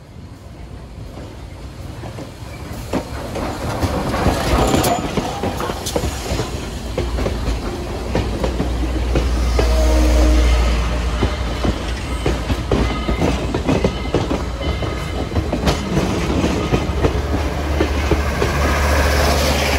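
Southern Railway 2-8-2 steam locomotive No. 4501 and its passenger train passing close by. The sound grows over the first few seconds as the engine comes up, then the cars roll past with a heavy rumble and a steady clickety-clack of wheels over the rail joints.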